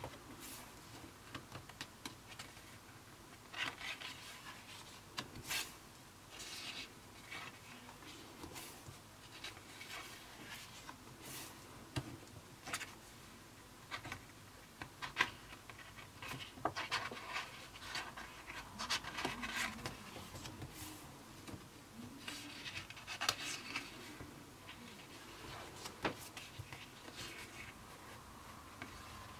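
Pages of a hardcover Leuchtturm1917 sketchbook with heavy 180 g/m² paper being turned and pressed flat by hand: irregular paper rustles and rubbing with small sharp ticks.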